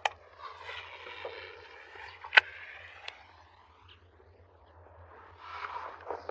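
Baitcasting reel whirring as its spool turns, with one loud sharp click about two and a half seconds in and a few lighter clicks after. The whir fades for a moment, then starts again near the end.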